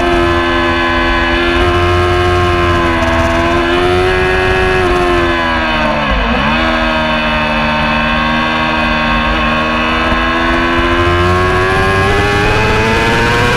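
Race motorcycle's engine heard onboard at high revs, holding steady, with a sharp brief dip in revs about six seconds in, then climbing steadily in pitch near the end as the bike accelerates.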